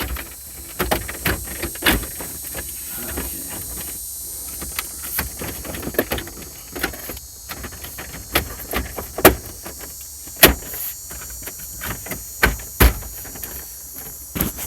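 Irregular sharp clicks, taps and knocks from plastic dashboard parts being handled, about a dozen spread unevenly over a faint steady hiss.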